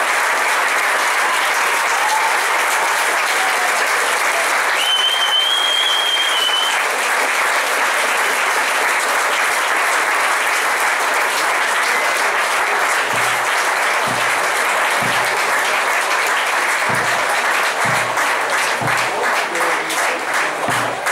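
Audience applauding steadily, with a brief high whistle about five seconds in. From about halfway, a bass drum starts a slow, even beat that quickens near the end.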